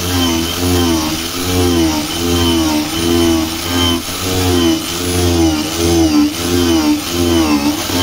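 Handheld power tool spinning a ball-shaped cutter as it carves out the hollow of a cherry-wood dish blank. The motor's pitch sags and recovers about twice a second as the cutter is worked back and forth through the wood.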